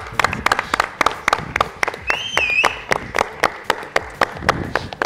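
Audience applauding with distinct, separate claps, several a second, and a short high whistle about two seconds in.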